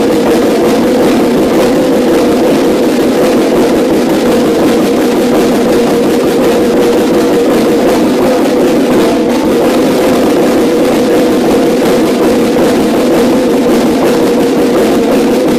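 A drumline snare section, five Yamaha marching snare drums, playing a fast rudimental passage in unison: a loud, dense, unbroken stream of rapid strokes with a ringing drumhead tone.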